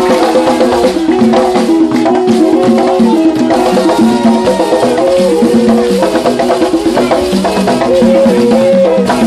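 A man singing a held, stepping melody through a microphone and loudspeaker, over percussion: quick knocks and shaker rattles keeping a busy beat.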